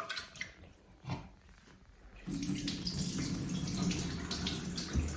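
Rice being rinsed in a bowl: a few faint splashes, then about two seconds in a cold-water tap starts running steadily into the bowl.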